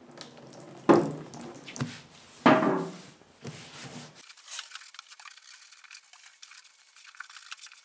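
Thinner poured from a bottle onto a rag twice in quick loud gushes, then a faint scratchy rubbing as the rag wipes the bare metal floor panel.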